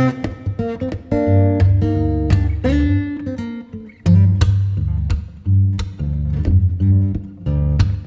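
Background music led by a plucked acoustic guitar over a steady bass line.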